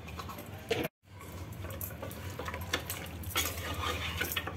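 A spatula stirring and scraping spiced mutton pieces in an aluminium pressure cooker, with irregular scrapes and light knocks against the pot. The sound cuts out for a moment about a second in, then the stirring carries on, busiest near the end.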